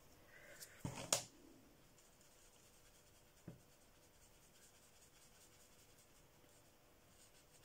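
Felt-tip Arteza Twimarker rubbing faintly in small circles on colouring-book paper. About a second in comes a quick cluster of sharp clicks, the loudest sound, and later one light knock.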